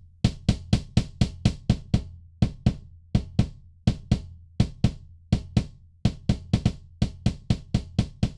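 Kick drum track playing a fast repeating pattern, about three to four hits a second with some hits doubled, each with a sharp click on top of a deep low-end body. Its transients are enhanced by a transient designer and blended with the natural kick sound.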